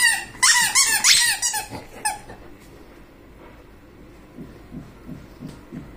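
Golden retriever chewing a squeaky toy ball, squeezing out a quick run of high-pitched squeaks in the first two seconds, then letting it go quiet.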